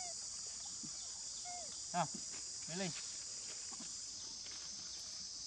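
A steady, high-pitched chorus of insects shrilling throughout. A few short pitched calls break over it, the loudest about two seconds in and again just before three seconds.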